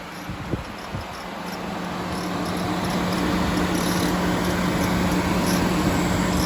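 Engine compartment of a 2010 Nissan Serena (C25) with its engine running: a steady low hum over mechanical noise that swells over the first few seconds, with faint high chirping ticks above it. This is the abnormal noise (異音) the engine bay had started making.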